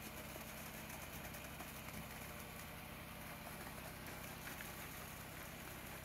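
Concrete pump's engine running steadily with a low, even drone while wet concrete is pumped into foundation formwork.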